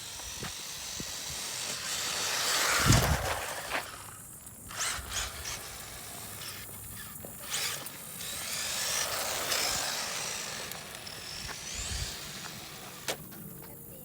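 Traxxas 1/16 Slash RC truck's electric motor whining as it is driven at full speed, growing louder to a peak with a thump about three seconds in, then swelling again around nine seconds.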